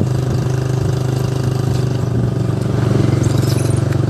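An engine running steadily with a low, even hum that pulses slightly and gets a little louder about two and a half seconds in.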